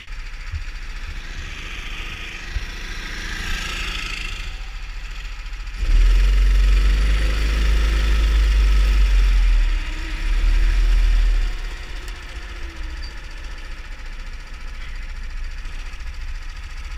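Rental kart engine running at low revs as the kart rolls slowly, heard from a camera mounted on the kart. A heavy low rumble swells in from about six seconds in and fades near the end of the middle stretch.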